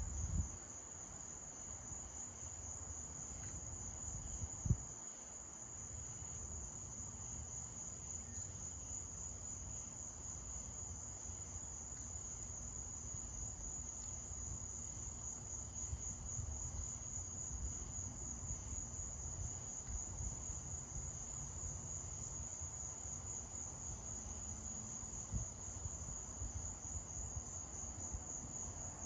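A chorus of night insects: a steady, high-pitched, rapidly pulsing trill. Under it is a low rumble, and there is one brief low thump about five seconds in.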